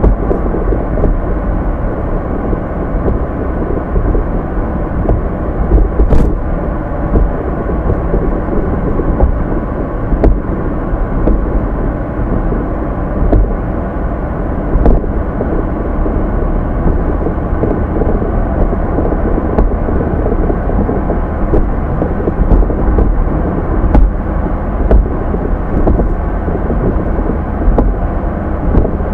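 Car driving sound effect: a steady low rumble of engine and road noise, with a few faint clicks.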